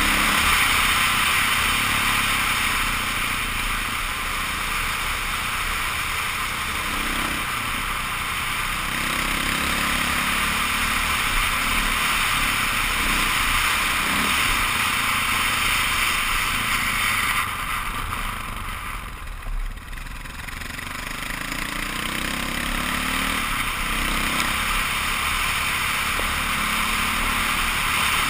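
KTM 530 EXC's single-cylinder four-stroke engine running under way on a gravel road, its pitch rising and falling with the throttle, under steady rushing wind and road noise on a helmet-mounted camera. About two-thirds of the way through, the engine and the rush drop for a few seconds, then build again.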